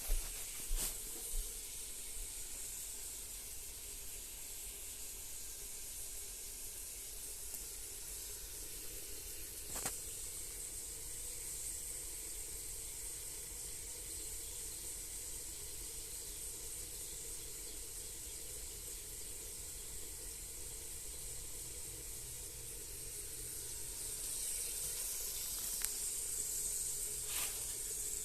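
Food sizzling steadily in a hot frying pan, a constant high hiss, with a few light clicks or knocks near the start, about ten seconds in, and near the end.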